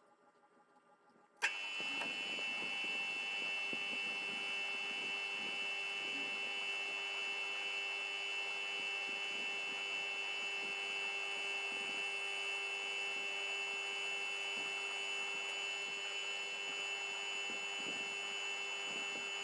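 The motor of a small bench machine tool running steadily, a hum with a constant high whine and faint irregular ticks. It starts abruptly with a click after about a second and a half of near silence.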